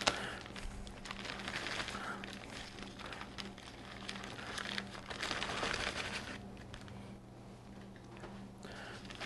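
A plastic zip-top bag and the foil wrappers of bouillon cubes crinkling as the wrappers are picked out of the bag by hand, in on-and-off rustles that get quieter over the last few seconds.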